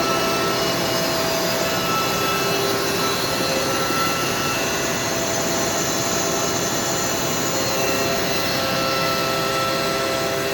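Steady machinery whir at an even level, with faint hums that fade in and out.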